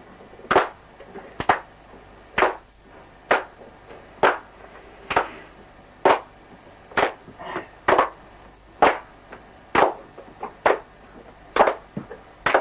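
Sharp hand-made clicks, snapped or clapped in a steady beat a little under one a second, laid down as a percussion track.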